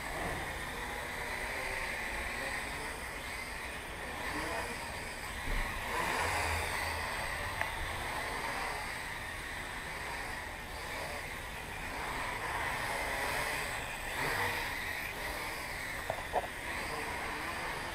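Blade 180 QX micro quadcopter in flight: a steady whirring buzz from its motors and propellers that wavers slowly in pitch as the throttle changes. Two short ticks come near the end.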